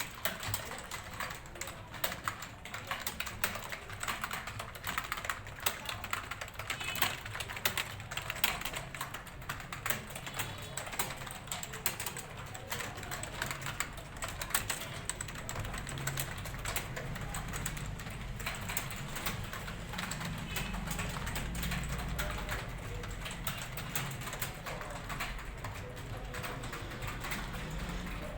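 Rapid, continuous clicking of several people typing fast on computer keyboards during a timed typing test, with a low steady hum underneath.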